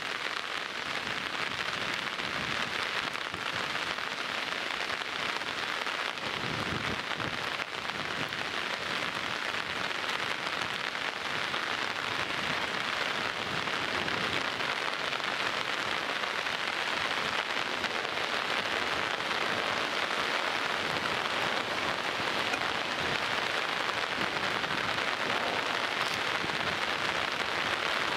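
Heavy downpour: rain falling hard and steadily, a dense, even hiss.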